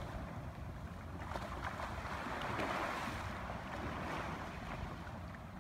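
Small surf washing up a sand beach, the foamy wash of a wave swelling and fading about halfway through, with wind buffeting the microphone.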